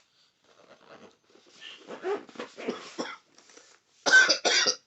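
A dog whining faintly, then three short, loud barks about half a second apart near the end.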